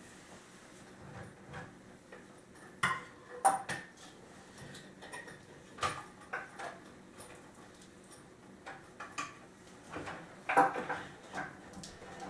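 Wooden chair parts and the chair's steel cable hardware being handled and fitted together: scattered knocks and clinks at irregular intervals, a few of them sharp.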